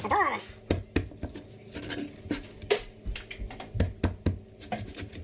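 A steel cleaver chopping a whole fish into pieces on a wooden cutting board: a dozen or so sharp knocks as the blade cuts through and strikes the board, at an uneven pace of about two or three a second.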